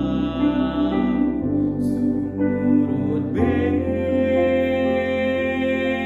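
A young male voice singing a slow song solo over instrumental accompaniment, holding long notes; the accompaniment shifts to a new chord about three and a half seconds in.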